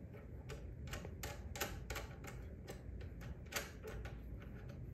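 Light irregular clicks and taps, a few a second, from handling the wooden frame and hardware of a wool swing picker as a knob is fitted onto an upright, with one sharper click about three and a half seconds in.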